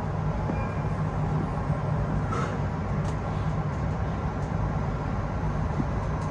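Train running noise heard from inside the train's rear cab: a steady low hum as the train moves off slowly through the station, with a couple of faint clicks.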